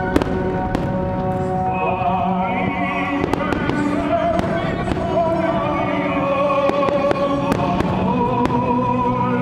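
Fireworks bursting in irregular bangs and crackles over a loud operatic music soundtrack, a singer's voice wavering with vibrato above an orchestra.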